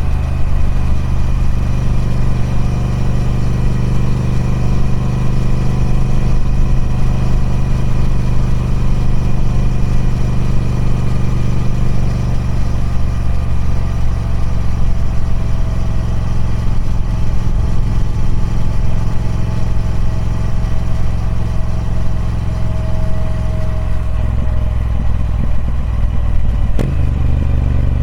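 Triumph Speed Twin 1200's 1200 cc parallel-twin engine running steadily through its stock exhaust. A sharp click comes near the end, and the engine note changes slightly after it.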